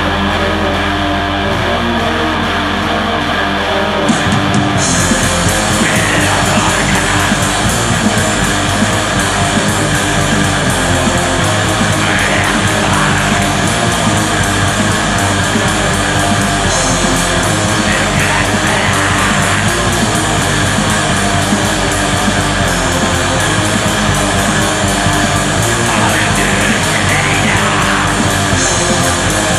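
Heavy metal music, a loud, dense wall of distorted electric guitar. About four seconds in, a held low note gives way and the full band fills in more densely.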